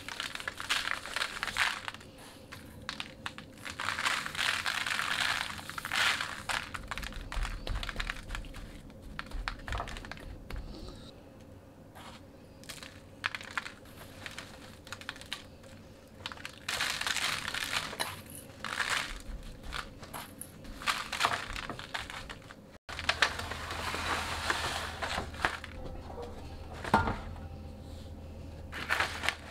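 Hands rubbing a coarse salt and sugar rub into a raw pork shoulder: grainy scraping and the butcher paper underneath crinkling, in uneven bouts with short pauses. Near the end there is a single sharp click against the metal roasting pan.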